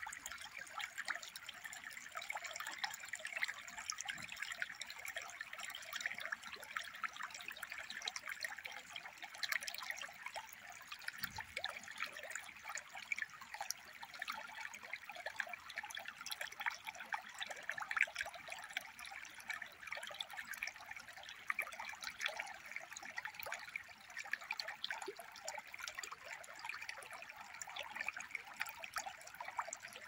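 Shallow stream trickling and babbling over stones, a steady sound full of fine crackles.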